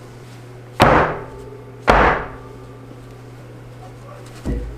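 Metal loaf pan holding a freshly baked milk bread loaf banged down twice on the table, about a second apart, each a sharp knock with a short ring; the shock drives out the steam so the loaf doesn't sink. A softer thump near the end as the loaf is tipped out of the pan.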